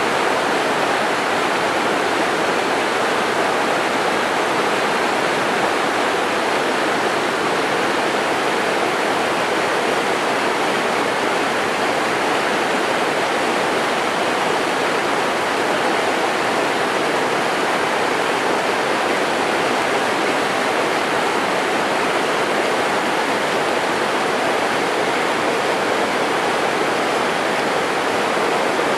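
Waterfall pouring down a rock cliff: a steady, even rush of falling water.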